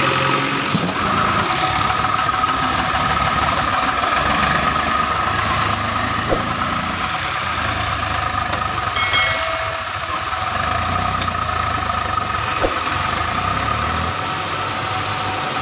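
A farm tractor's diesel engine running steadily while the tractor hauls a loaded trolley through deep mud.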